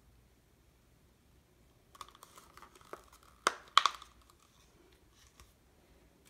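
A thin plastic cup crinkling and clicking as it is gripped and handled, with two sharp louder clicks about three and a half seconds in.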